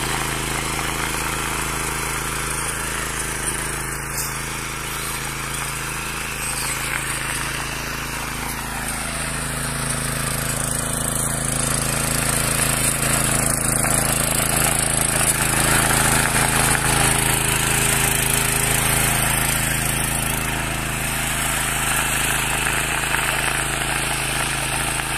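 Mini power weeder (walk-behind tiller) with its small engine running steadily under load as its rotating tines churn through soil, a little louder in the middle stretch.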